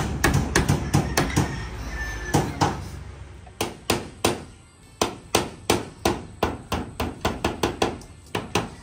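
Hammer driving nails into wooden framing and wall boards: quick, regular blows about three to four a second, with a short break about three seconds in.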